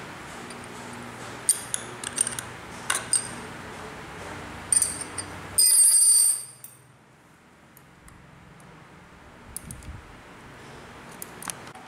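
Metal tools and fittings clinking while the blade-mounting parts of a brush cutter's gearhead are handled: a few sharp clicks, then a loud ringing metallic jingle about six seconds in, then fainter small clicks.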